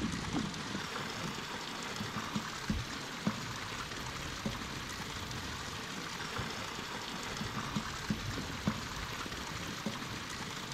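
Shallow creek water running and trickling steadily, with a few light scattered knocks and clicks from a PVC pipe and stones being handled in the streambed.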